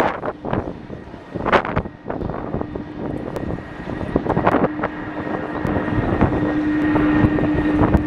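Jet airliner's engines with a steady whine, growing gradually louder over the second half, over gusts of wind buffeting the microphone in the first couple of seconds.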